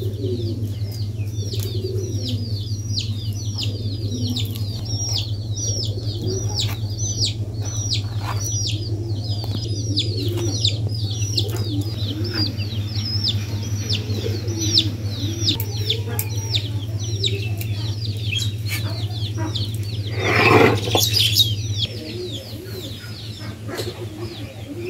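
Chicks peeping: a rapid, unbroken stream of high, falling chirps over a steady low hum. A louder burst of sound comes about twenty seconds in, and the chirping stops soon after.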